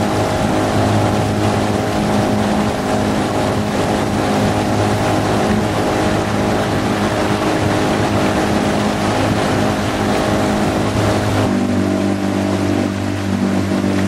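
Motorboat engine running steadily. About eleven seconds in, the engine note changes abruptly to a slightly different pitch, then holds steady.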